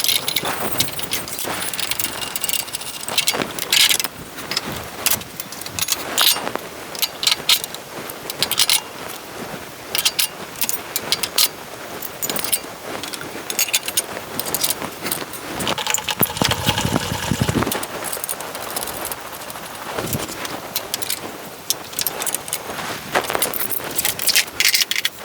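Repeated metal clinks and rattles, irregular and scattered throughout, as dado blades and chippers are handled and fitted onto a table saw arbor. A longer scraping or rattling stretch comes about two-thirds of the way in.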